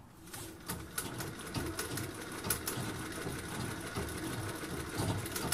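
Treadle-driven Singer 201-2 sewing machine starting up and stitching through fabric, a rhythmic running with a string of sharp ticks. The ticking is a fault the owner plans to fix.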